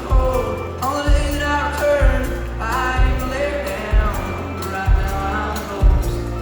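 Live country music: a band playing with singing over a steady low beat of about one kick and bass note a second.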